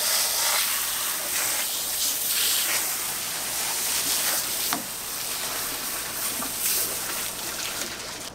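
Water jetting from a pistol-grip hose spray nozzle onto a gutted cobia and the cleaning table, rinsing blood out of the belly cavity: a steady hiss of spray.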